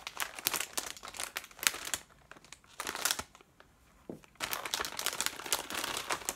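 Plastic packaging of a model rocket kit crinkling as it is opened and handled, in dense irregular crackles with a lull of about a second a little past halfway.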